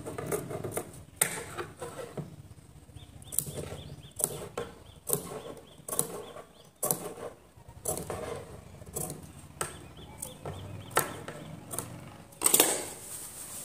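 Large tailor's shears snipping small notches into a curved neckline seam allowance, clipping the fabric so the neck will turn cleanly. The snips are short and come at uneven intervals, roughly one or two a second, with the loudest near the end.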